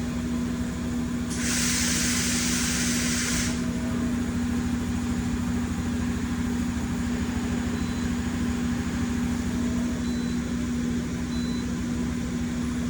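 Okuma CNC milling machine running with a steady electrical hum during an automatic tool-length measurement. A hiss of spraying air or fluid comes in about a second and a half in and stops sharply about two seconds later.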